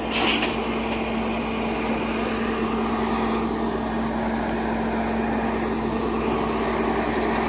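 Flatbed tow truck's engine idling: a steady, unchanging hum.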